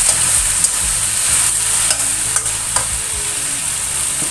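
Eggplant chunks and chicken sizzling in a hot stainless steel wok as they are stir-fried. A steady frying hiss runs throughout, and a metal spatula scrapes and clicks against the pan several times.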